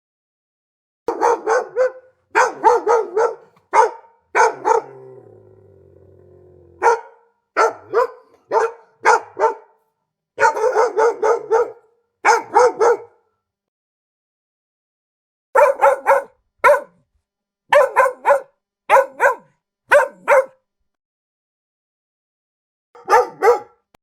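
A dog barking in quick clusters of two to four barks, with silent gaps of one to three seconds between clusters.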